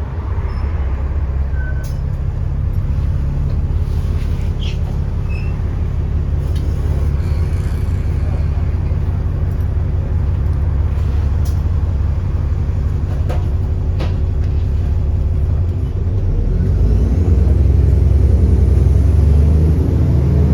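Diesel engine of an Alexander Dennis Enviro400 double-decker bus running steadily at low revs, with a few sharp rattles and clicks. About three-quarters of the way through the engine note builds as the bus pulls away, and a thin turbo whistle rises in pitch near the end.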